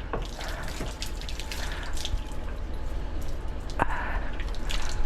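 Water dripping and splashing from a broken water pipe, in many quick irregular drops, over a steady low hum.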